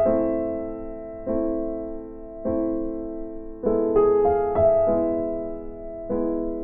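Soft background piano music: chords struck about once a second and fading away, with a short rising run of notes about four seconds in.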